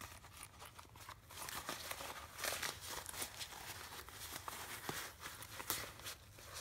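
Faint rustling and crinkling of cloth as a rolled-up doll's sleeping bag is pushed into a small purple fabric purse, with a few light clicks.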